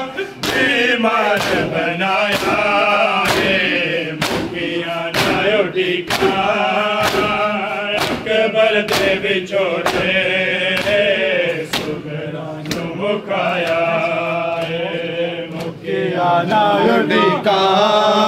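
Men chanting a noha lament in chorus, with the rhythmic slaps of group chest-beating (matam) landing about once a second.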